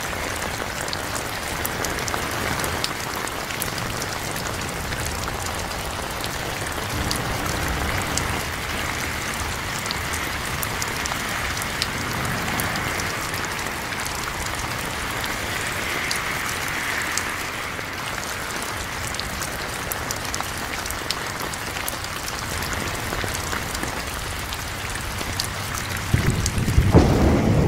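Steady rain falling, with single drops ticking throughout. A louder low rumble comes in near the end.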